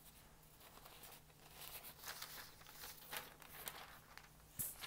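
Faint rustling and crinkling of thin sheets of Japanese Hanshi rice paper being handled and shuffled, with a sharper crinkle just before the end.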